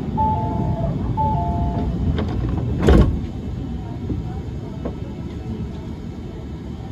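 Inside a Hiroshima Electric Railway 1000-series Green Mover LEX low-floor tram: a two-note electronic chime sounds twice near the start, then a single loud thump about three seconds in, over the car's steady low rumble.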